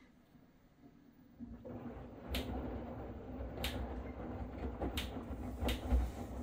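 LG F4WV512S0E front-loading washing machine with a direct-drive motor starting its wash cycle. About a second and a half in, a steady low running sound begins as the drum turns, with a knock every second or so as the load of sheets drops.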